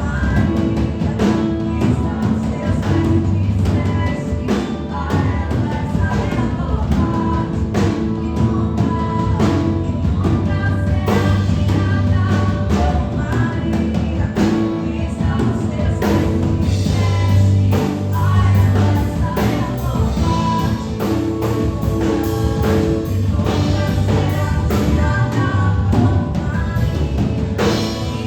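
A live church worship band playing a song with drum kit and other instruments, with singing over it.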